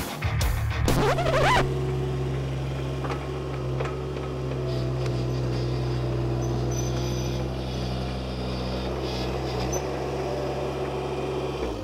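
Rock music ends about a second in. Then the engine of a Vermeer walk-behind compact track loader idles steadily, with an even low hum, until it cuts off at the end.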